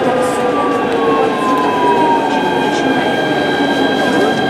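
Electric tram running along the line, its traction drive whining in several steady high tones while one tone slides slowly down over the first two seconds, over a constant rumble of wheels on rails.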